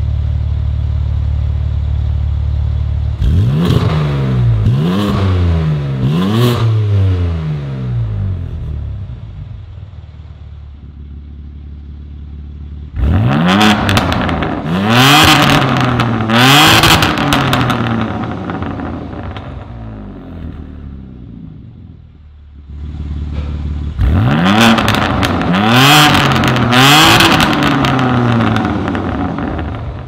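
BMW M4 Competition (G82) twin-turbo inline-six through a Fi Exhaust valvetronic catback with catless downpipes, valves open: idling, then blipped in three sets of quick revs that rise and fall and settle back to idle between them, about 3, 13 and 24 seconds in. The later two sets are in Sport Plus mode.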